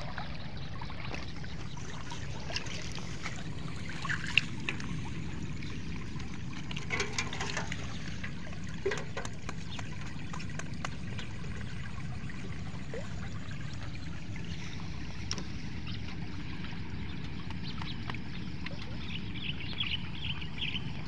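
Water trickling and dripping, with small splashes and knocks, as fish are shaken out of a bamboo fish trap into a metal bucket. There is one sharper knock about four seconds in, over a steady low rumble.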